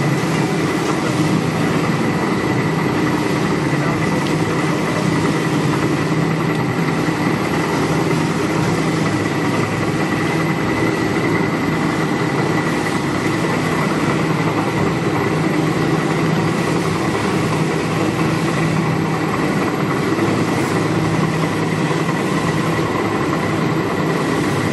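Planetary-motion jacketed cooking kettle running, its stirring motor and gearbox giving a steady machine drone with a low hum and a thin steady whine as the stirring arm churns thick curry.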